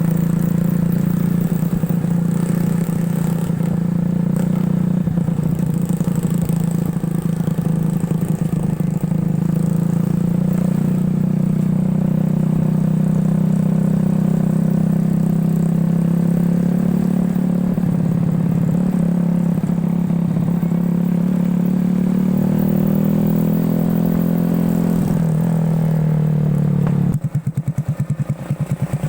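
Motorcycle engine of a homemade ATV running steadily, its pitch creeping up a little late on. Near the end it turns choppy and uneven.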